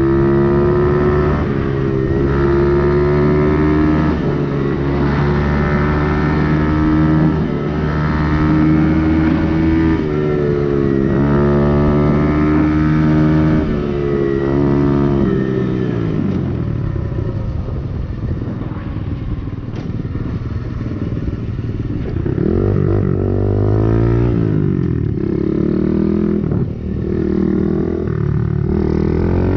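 125cc dirt bike engine running on the move, heard from the rider's position: it holds a steady pitch for the first half, eases off with the pitch falling about halfway through, then revs up and down again near the end.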